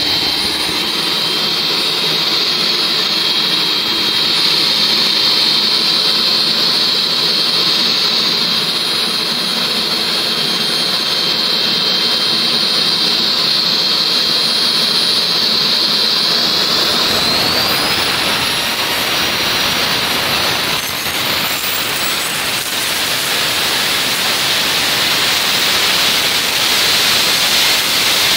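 JETPOL GTM100 micro jet engine running: a steady turbine whine over a jet roar at low power, then about two-thirds of the way through it spools up, the whine climbing in pitch over a couple of seconds and holding higher at high power.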